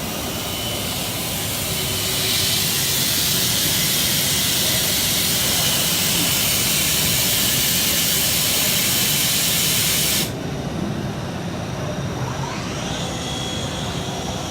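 A loud, steady hiss, like a jet of air or spray, starts about two seconds in and cuts off abruptly about ten seconds in, over the constant din of a busy machine hall.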